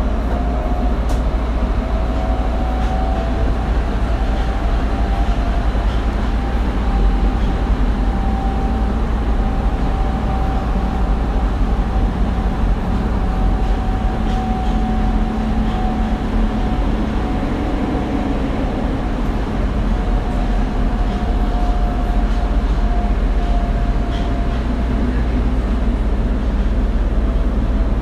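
Tokyo Metro 02 series subway car running between stations, heard from inside the passenger car: a loud, steady rumble of wheels on rail with a thin steady whine above it.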